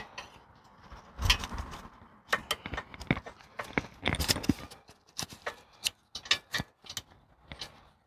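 Hands handling a bicycle's mechanical disc brake caliper and rotor while fitting paper shims: a run of irregular light clicks and taps.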